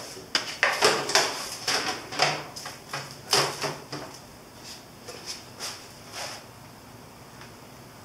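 Metal fairing-mounting brackets and hardware being handled and adjusted by hand on a motorcycle front end: a quick run of clicks, clanks and light knocks that thins out after about four seconds.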